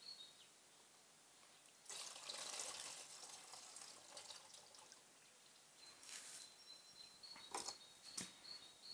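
Antifreeze poured from a cooling-system filter's plastic bowl into a funnel: a faint liquid trickle about two seconds in, lasting a couple of seconds. Faint chirps and a couple of light clicks follow near the end.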